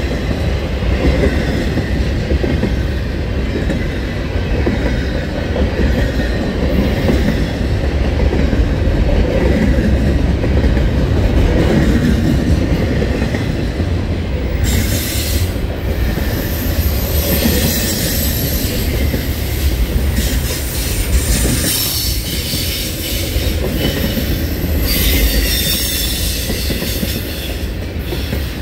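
CSX double-stack intermodal freight train rolling past close by: steady rolling noise of steel wheels on the rails as the container well cars pass, with bouts of high-pitched wheel squeal about halfway through and again near the end.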